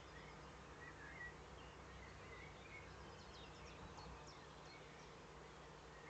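Faint songbird calls: scattered short chirps, with a quick run of high falling notes about three seconds in, over a steady low hum and hiss.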